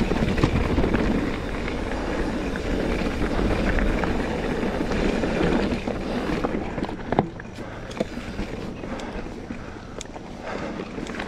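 Mountain bike rolling down a short descent on a dirt trail: wind rushing over the microphone and tyre noise, loudest for about the first six seconds and then easing, with scattered sharp clicks and knocks as the bike goes over the ground.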